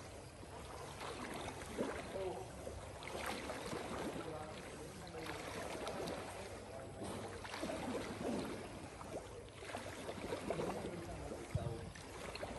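Pool water splashing and sloshing from a swimmer's breaststroke, swelling again with each stroke.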